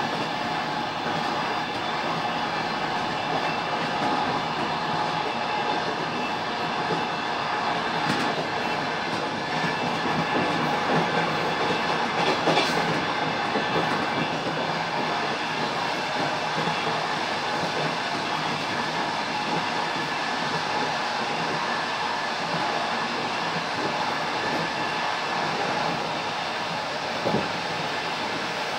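Passenger train running steadily, heard from inside a carriage: the continuous rumble and clatter of the wheels on the rails, with a few sharper knocks.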